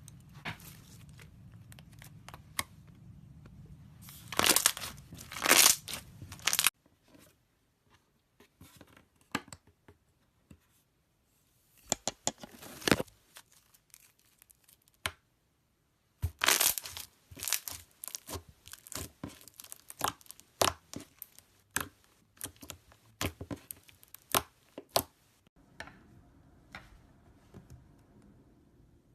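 Slime being pressed and squeezed, giving off clusters of sharp crackles and pops in bursts with short quiet gaps between them.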